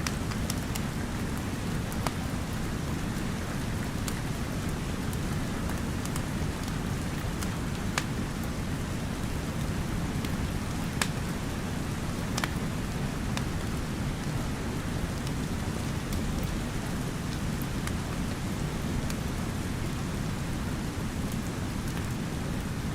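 Steady rain with a crackling wood fire, its few sharp pops standing out now and then.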